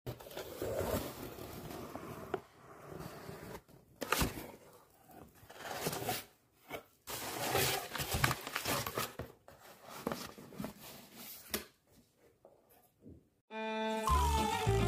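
A cardboard mailer box being opened and its contents handled: irregular rustling, scraping and crinkling of cardboard and a non-woven fabric bag, with a few sharper knocks. Music with string instruments begins near the end.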